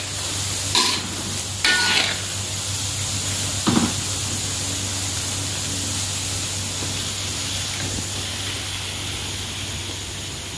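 Kuih siput dough pieces deep-frying in hot oil in a wok, a steady sizzle. A few sharp scrapes of the metal spatula against the wok come in the first four seconds as the pieces are stirred.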